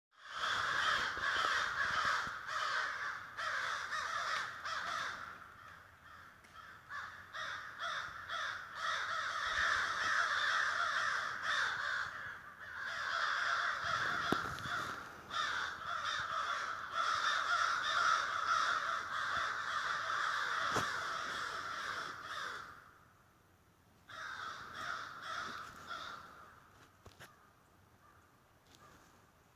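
Crows cawing, many harsh calls overlapping almost without pause, breaking off briefly about 23 seconds in and then dying away.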